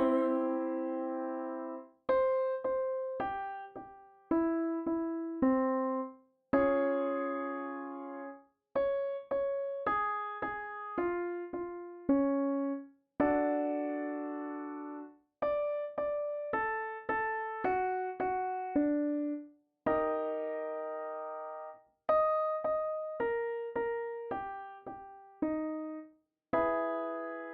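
Piano accompaniment for a vocal warm-up exercise: a short run of single notes, then a held chord, then a brief silence. The figure repeats about four times at a slightly different pitch each time, with no voice singing over it.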